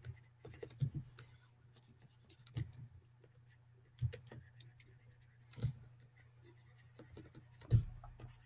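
Scattered single clicks of computer keyboard keys, irregular and a second or two apart, the loudest near the end, over a faint low steady hum.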